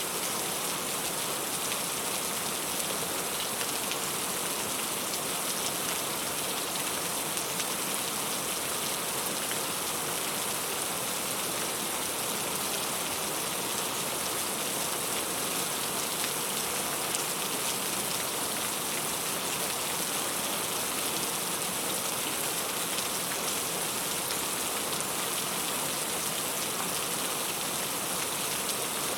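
Heavy rain falling steadily, an even hiss with fine pattering drops and no thunder.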